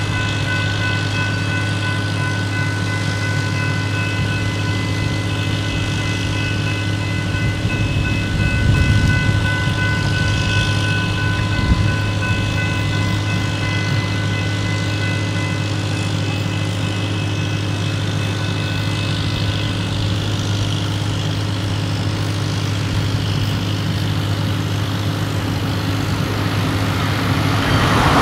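Grade-crossing warning bells ringing steadily over a low hum, their tones dropping out one after another in the second half. Near the end the rumble of an approaching Brightline passenger train rises.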